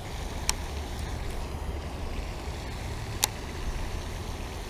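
Steady low outdoor rumble of wind and water, with two short sharp clicks, one about half a second in and one about three seconds in.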